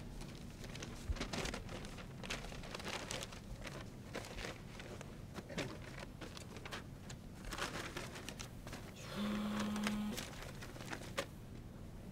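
Sheets of paper rustling and crinkling as they are shuffled and gathered up by hand off the floor. About nine seconds in, a mobile phone rings once with a buzzing electronic tone about a second long.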